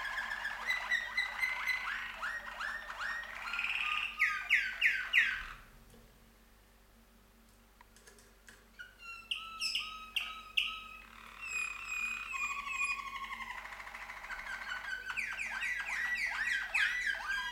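Domestic canaries singing a duet of fast trills and rapid repeated sweeping notes. The song stops for about two seconds near the middle, then starts again.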